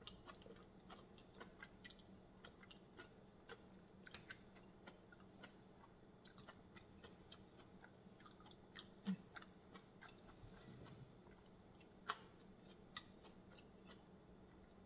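Faint close-up eating sounds: soft chewing with scattered small wet clicks and smacks as seafood is eaten and shrimp shells are picked at, a couple of sharper clicks partway through.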